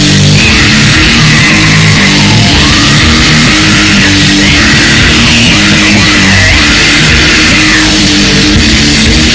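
Harsh noise / noisecore music: a dense, distorted wall of sound at constant full loudness. Low tones jump in pitch a few times a second, and a wavering high whine runs over them.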